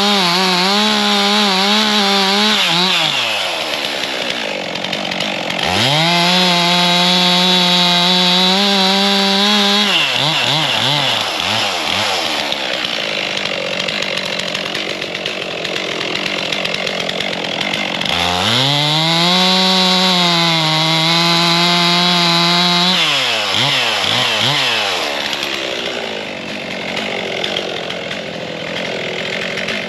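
Stihl MS 362 chainsaw cutting poplar into firewood rounds. The engine is held at steady high revs through three cuts, near the start, about six seconds in and about eighteen seconds in, and falls back and wavers toward idle between them.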